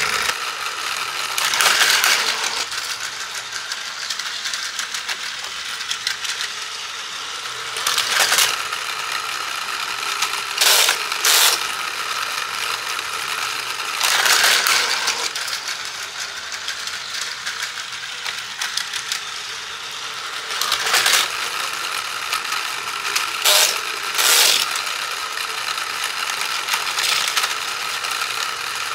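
Plarail toy railroad terminal being worked by hand: several short bursts of plastic clacking and clatter as its levers and buttons are pressed and toy cars are moved along and down its ramp, over a steady mechanical whir of small toy gears.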